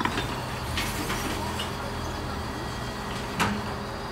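Mercedes-Benz Econic bin lorry running steadily while its Terberg OmniDEL lifts tip and lower wheelie bins, with a few light clicks and one sharp knock about three and a half seconds in.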